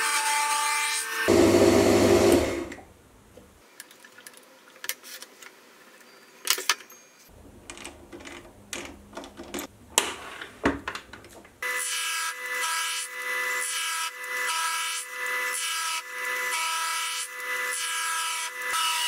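Small metal lathe taking a taper cut on the corners of a square steel bar, an interrupted cut with a steady whine that swells and fades about once a second. Just after a second in it gets louder, then stops. Several seconds of scattered clicks and knocks follow as the bar is handled, and the cutting starts again about twelve seconds in.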